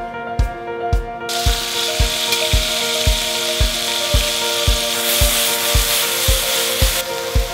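Cubes of beef brisket sizzling as they sear in hot oil in a pan, a loud, even hiss starting about a second in. Background music with a steady beat plays throughout.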